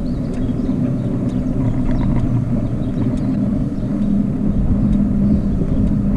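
Bicycle in motion: steady wind and road noise on the microphone, with a low, even hum.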